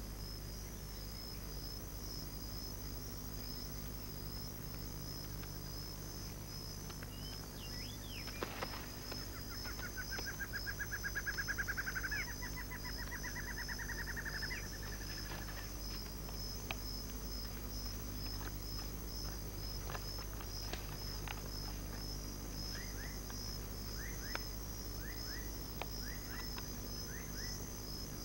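Rainforest insect chorus, crickets, as a steady high pulsing trill over a low hum. About ten seconds in, an animal's rapid trilled call rises in pitch and holds for several seconds. A few short chirps come near the end.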